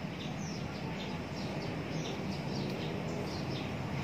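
Small birds chirping again and again in the background, short high falling chirps over a steady low hum.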